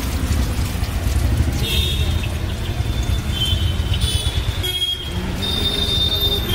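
Street traffic rumbling steadily, with thin high-pitched tones coming and going from about two seconds in.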